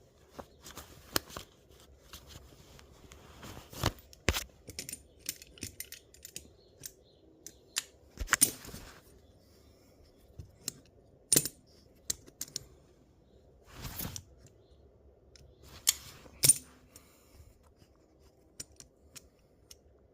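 Hand tools and metal parts being handled in a workshop: scattered clicks, clinks and knocks at irregular intervals, with a couple of short scraping sounds.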